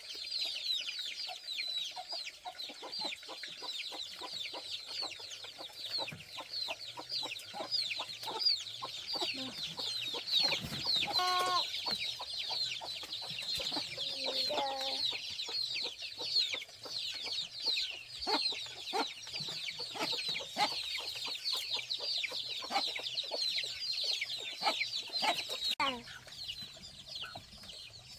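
Chickens peeping and clucking: a dense chorus of short, high, falling peeps with a few lower calls mixed in, cutting off suddenly near the end.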